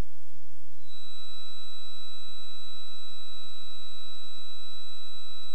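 Steady in-flight cabin noise of a light aircraft, with a constant high-pitched electronic tone that comes in about a second in and holds steady.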